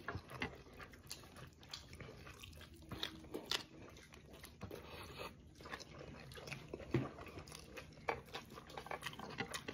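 A person chewing a mouthful of rice and vegetables close to the microphone, with irregular small clicks and smacks of the mouth.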